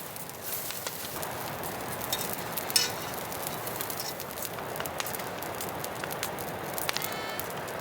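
Food sizzling in a hot pan: a steady hiss with scattered sharp crackles and pops.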